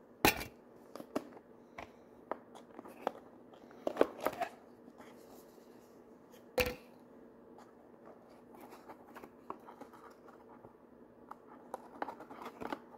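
A just-opened metal pipe tobacco tin being handled, giving scattered sharp clicks and taps of the tin and lid. The clicks come just after the start, around four seconds in and again about six and a half seconds in, with faint rustling and crinkling of the packing between them.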